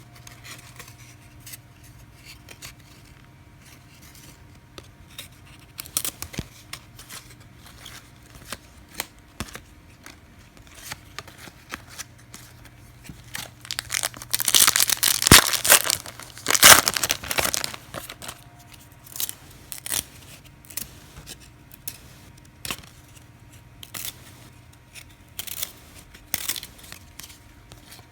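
A trading card pack wrapper being torn open, loudest from about 14 to 18 seconds in, amid light clicks and rustles of cards being handled.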